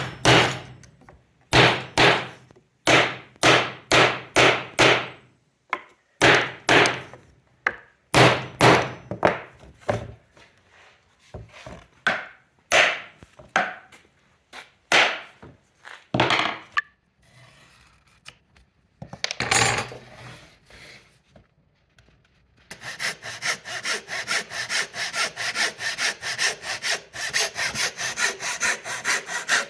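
Hand saw cutting wood: slow, separate rasping strokes, then a short lull, then fast, steady back-and-forth strokes from about three-quarters of the way in.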